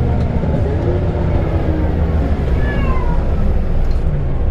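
Scania L94UB bus's diesel engine running steadily, heard from on board, with several high whines that glide up and down in pitch, one falling whine a little before the three-second mark.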